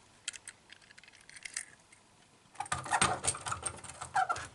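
Light clicks and clattering of a metal 1:64 die-cast toy car being handled against hard plastic, with a few scattered ticks at first and a denser run of rattling clicks from about halfway in.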